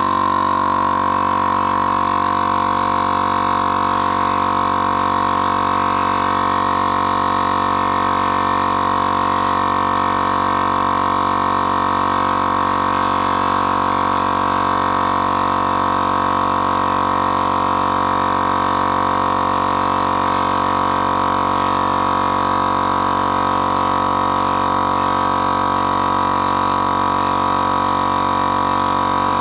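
Portable electric air compressor running with a steady, unbroken hum, its piston pump charging the launcher's storage chamber during a pressure test.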